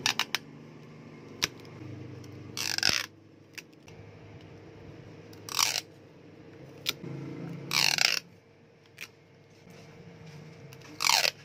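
Adhesive tape pulled off the roll of a desktop tape dispenser in four short rips, each falling in pitch. Small sharp clicks and taps come between the rips.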